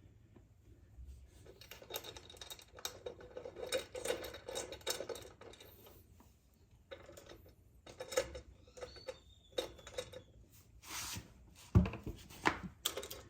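Metal hardware and hand tools clinking, rattling and scraping in irregular short clicks as ride plate parts are handled and fitted, with a sharper knock about twelve seconds in.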